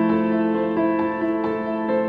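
Soft background music on a keyboard: a gentle melody of notes changing about every half second over a held low chord.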